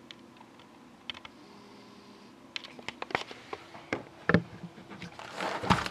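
Handling noises from a sealed cardboard hobby box of hockey cards: a string of light, irregular clicks and knocks, then a brief rustle and a dull thump near the end.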